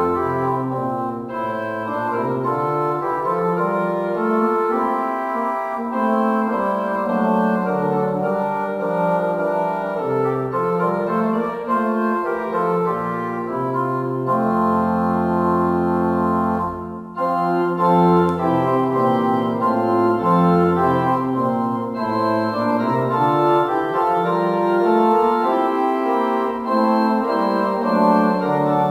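Organ music: sustained chords over a moving bass line, with a brief break about seventeen seconds in.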